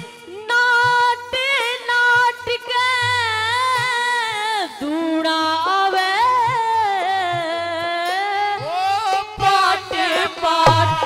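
A singer performing a Haryanvi ragni, holding long notes that bend and glide in ornamented runs, with a low drum struck now and then underneath.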